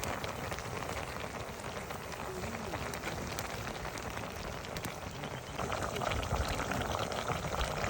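Meat sizzling in a pan over a wood fire: a steady frying hiss full of fine crackles, growing louder about five and a half seconds in.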